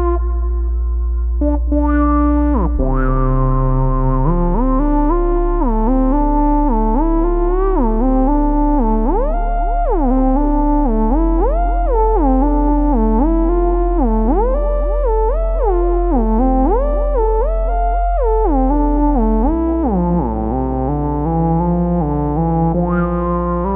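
Electronic music: a synthesizer lead sliding between notes over a held low bass note that changes pitch about every eight seconds.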